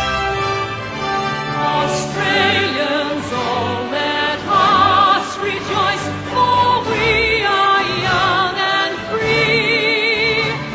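A national anthem sung with heavy vibrato over instrumental accompaniment, sustained notes changing every second or so.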